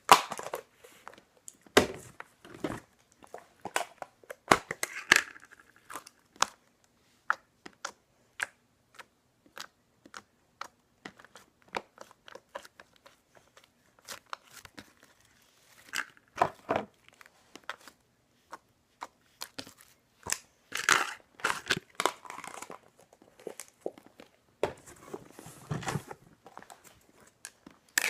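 Slime being stretched and poked by hand, giving irregular crinkly clicks and pops, with denser crackling clusters several times.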